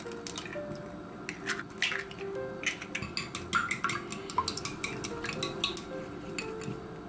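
A series of irregular clinks and taps of utensils against dishes and cookware, heard over soft background music with a gentle melody.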